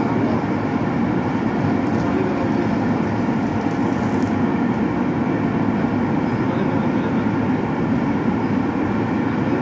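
Steady machine drone that runs unbroken at an even level, with a low, rumbling body and no distinct strikes or crackle.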